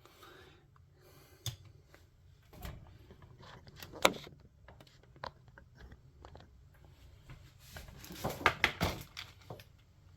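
Handling noise from a plastic action figure and its accessories: scattered light clicks and rustles, with a quick run of sharper clicks about eight seconds in.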